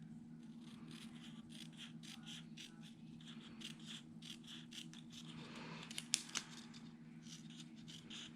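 Scissors snipping paper, faint: a quick run of small, repeated cuts, several a second, trimming a thin edge off a paper strip, with a couple of sharper clicks about two-thirds through.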